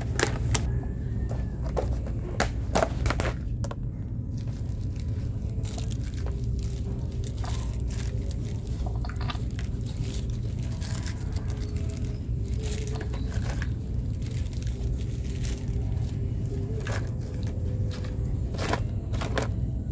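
Hands rummaging through a plastic storage box of small parts: irregular rustling, clicking and scraping of plastic containers and paper and plastic packets being handled, over a steady low hum.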